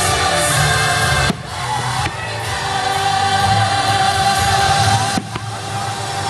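Music with voices singing, choir-like, including one long held note through the middle.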